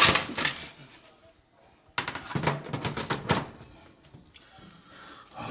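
Metal clanks and rattles of an oven door and its hinges being handled and lined up, in two bouts separated by a quiet second or so.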